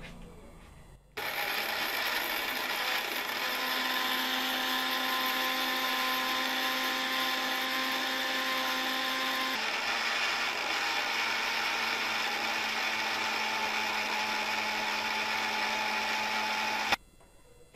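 Orpat 1200-watt mixer grinder running, grinding whole dry red chillies to powder in its small stainless-steel jar. The motor starts about a second in with a steady high whine that changes pitch about halfway through, then cuts off abruptly near the end.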